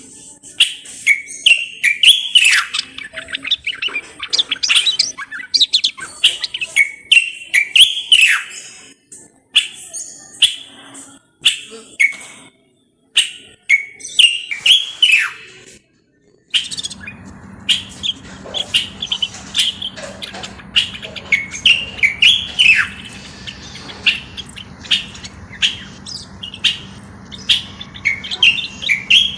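Common bulbul singing: repeated short phrases of whistled chirps with quick downward sweeps, in bursts separated by pauses. After a silent gap a few seconds long, a steady low hum starts beneath the song and lasts to the end.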